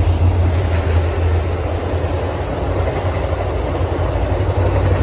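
VIA Rail passenger train passing on the tracks below, a loud, steady low rumble.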